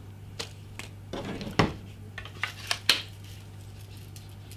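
A cable's packaging being opened and handled: a short plastic rustle and a string of sharp clicks and taps over the first three seconds, then only a steady low hum.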